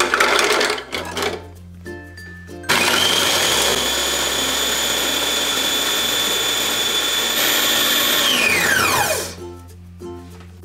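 Oreo cookies clatter as they tip from a plate into the plastic bowl of a Kenwood food processor. About two and a half seconds in, the motor starts and runs steadily with a high whine as the blade crushes the cookies. It cuts out and winds down with a falling whine about eight seconds in.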